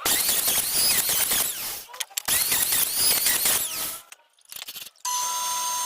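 Power tool working wood: two loud cuts of about two seconds each with a wavering whine, then after a brief pause a motor running at a steady pitch.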